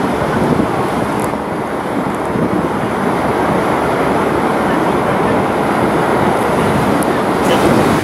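Loud, steady rushing noise aboard a boat under way at sea: wind buffeting the microphone over the sound of the boat and the water.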